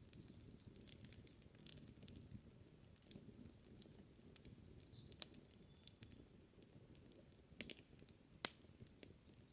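Wood campfire crackling quietly: scattered sharp pops and snaps over a low steady rumble, with a few louder pops in the second half.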